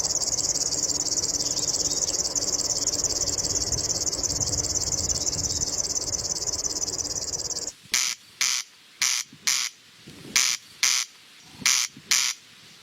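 A continuous high, buzzing trill like a cricket's, which cuts off suddenly about eight seconds in. Sharp, high chirps then follow in quick pairs.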